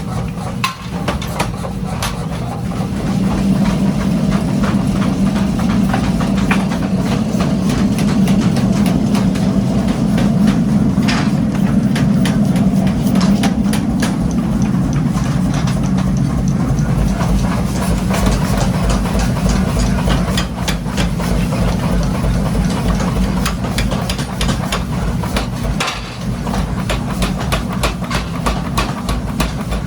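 Heavy workshop machinery running with a steady low hum, overlaid by many sharp metallic knocks that come fast and fairly regularly, most densely in the second half.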